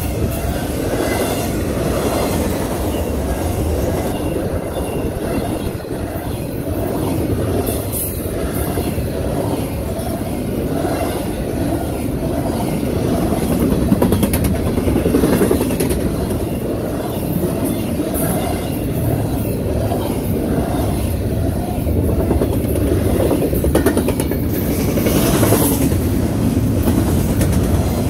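Cars of a CSX double-stack container train rolling past: a steady rumble of steel wheels on rail, with occasional sharp clicks.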